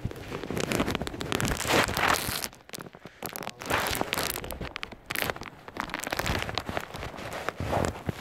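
Irregular rustling and crackling handling noise from the phone's microphone rubbing and being moved against something close, in uneven bursts with many small clicks.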